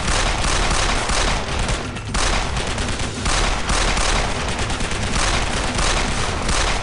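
Gunfight: a fast, nearly continuous volley of overlapping gunshots, including handgun shots, from several guns, with only brief lulls.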